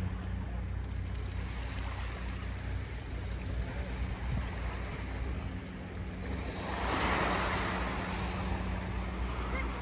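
Small sea waves washing onto a pebble beach. One wave breaks and hisses up the shingle about six to eight seconds in. A steady low hum runs underneath.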